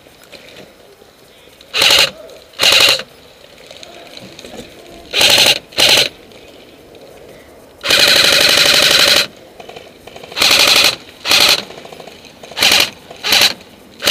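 Airsoft electric gun firing on full auto in about nine short bursts, a rapid mechanical rattle of gearbox cycling and BB shots, the longest burst lasting a little over a second about eight seconds in.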